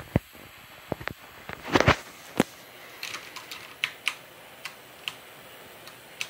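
Intel Arc A770 Limited Edition graphics card under gaming load at stock voltage, giving off coil whine heard as irregular short chirps and clicks over the even hiss of its cooling fans.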